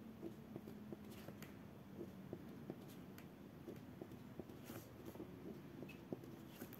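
Faint scratching of a pen on paper as short handwriting strokes are written, with scattered light ticks over a low, steady background.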